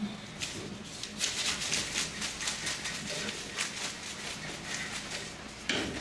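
Kitchen handling sounds: irregular light clicks and taps of utensils and dishes over a low steady hum, with a sharper knock near the end.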